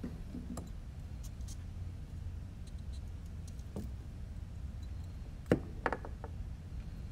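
Small drone parts being handled: a few light clicks and taps, then a sharper cluster of clicks about five and a half seconds in, over a low steady hum.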